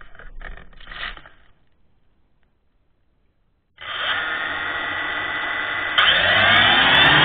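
Phantom quadcopter's electric motors and propellers starting up about halfway through with a steady, multi-toned whine. The whine gets louder about two seconds later and rises in pitch. Before it come a few light rattling knocks, then a gap of near silence.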